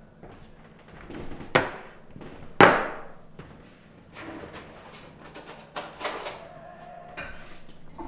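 A ceramic mug and a small tin set down on a table: two sharp knocks about a second apart, the second louder, followed by quieter knocks and scuffing as things are moved about.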